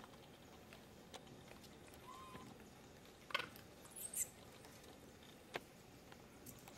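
Faint background hiss broken by a few sharp clicks and taps, the loudest about three and a half seconds in. A short rising chirp comes about two seconds in, and a brief high squeak about four seconds in.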